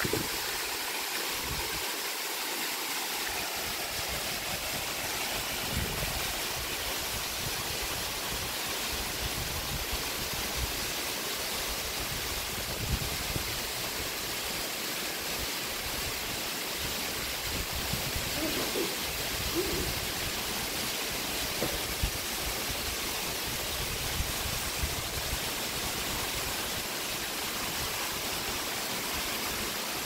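Waterfall pouring down a rock cliff: a steady, even rush of falling water, with occasional low thumps on the microphone.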